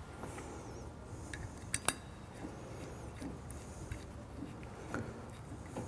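Hex key turning a set screw in the hub of a metal crank handwheel as it is tightened: light metallic clicks and clinks, with two sharper clicks a little under two seconds in.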